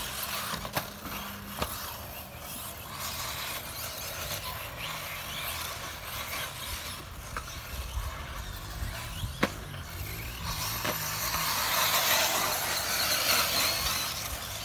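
1/8-scale off-road RC buggies driving around a dirt track: a mix of small-motor whine and tyre-on-dirt noise, with a few sharp clicks. It grows louder around twelve seconds in as the cars come by.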